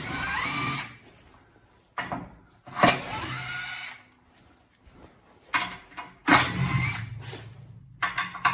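DeWALT 1/4-inch cordless impact driver backing out the skid plate's 12 mm bolts. It runs in several short bursts about a second long, each spinning up with a rising whine over a low hammering rattle.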